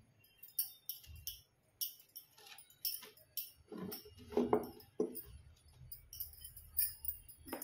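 Light rustling and jingling clinks from a sequined dress being handled and spread out, in short, scattered bursts that are a little louder about four seconds in.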